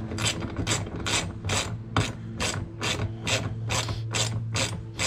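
Hand ratchet wrench clicking as it is swung back and forth to run down and tighten a nut, about three to four clicks a second. A steady low hum runs underneath.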